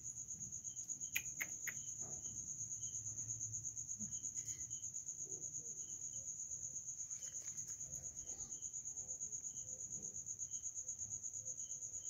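A cricket chirping steadily: a high, thin trill pulsing evenly about six times a second, with a few faint clicks a little over a second in.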